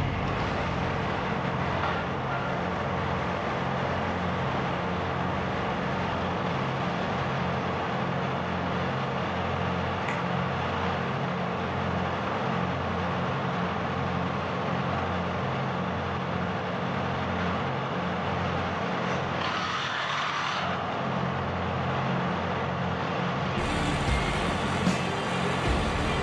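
Heavy diesel engine of construction machinery running steadily with an evenly pulsing low rumble; the sound changes character abruptly near the end.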